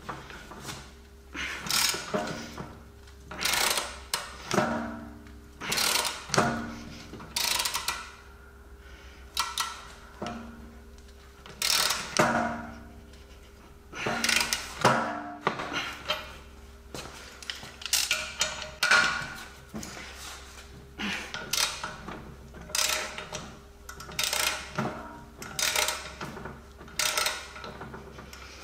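Irregular series of hammer blows on steel, each with a short metallic ring, as a ball joint is worked apart from the suspension link with a ball joint splitter.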